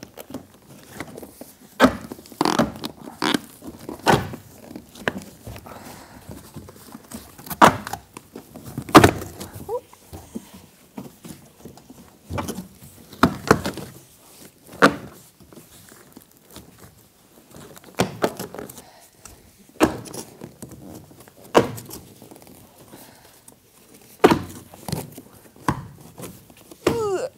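Stapled cardboard shipping box being pried and pulled open by hand: irregular thunks and sharp cracks as the stapled flaps are worked loose and the cardboard is handled.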